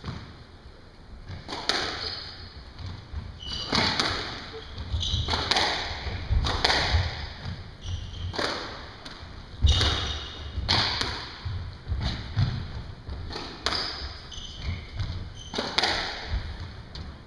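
Squash rally: the rubber ball struck by rackets and smacking off the court walls about once a second, each hit echoing, with short high squeaks of court shoes on the hardwood floor between hits.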